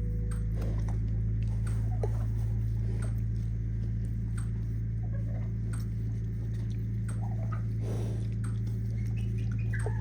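Newborn piglets squeaking, over a steady low hum, with a sharp snap every second or so from an electric fence charger.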